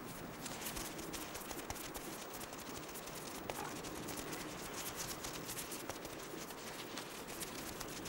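Faint, irregular scratchy crackling of a male ptarmigan's feet stepping over crusted snow.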